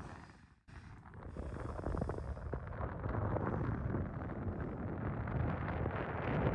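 Wind buffeting the microphone outdoors: a dense, uneven rumble that cuts out briefly about half a second in, then returns.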